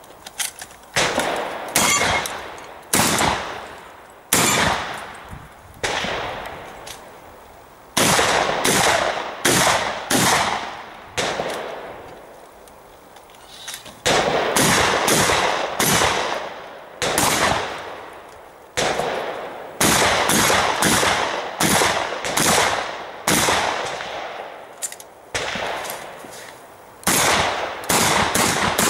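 Shotgun fired in rapid strings, about thirty shots at up to about two a second, each shot ringing off over roughly a second. There is a pause of a couple of seconds about twelve seconds in, then firing resumes.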